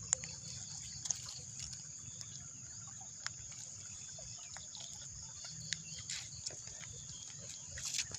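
Steady high chorus of night crickets, with scattered small clicks and rustles as a hooked fish is handled in wet grass.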